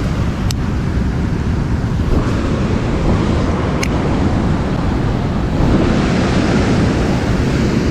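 Steady rush of water pouring through a large dam spillway, with wind buffeting the microphone and two faint ticks.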